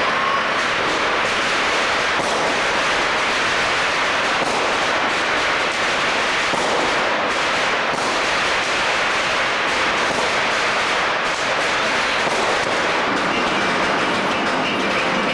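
Dense, continuous crackling of many firecrackers and fireworks going off at once, a steady unbroken barrage with no pauses.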